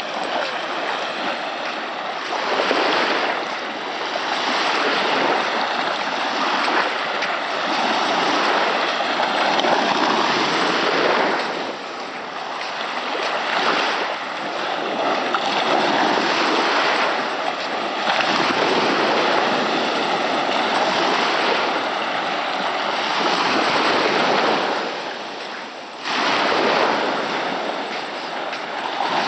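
Small waves breaking and washing up a sandy beach: a continuous rush of surf that swells and ebbs every few seconds.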